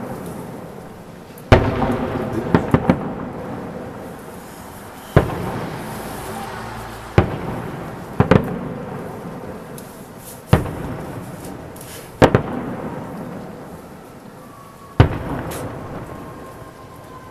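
Aerial fireworks salute: shells bursting with sharp bangs every second or two, some in quick pairs, each followed by a long rolling echo and crackle that fades before the next.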